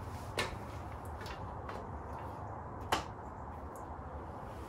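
Two sharp knocks about two and a half seconds apart, with fainter taps between, as a person jumps on a freshly mounted old Ford front bumper on a 1936 Chevrolet coupe. The bumper holds firm with no flex.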